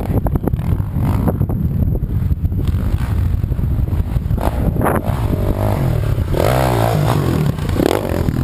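Honda CRF450R single-cylinder four-stroke dirt bike engine working around a motocross track, over a low wind rumble on the microphone. Near the end it comes closer and revs up and down as it climbs and lands on the track's bumps.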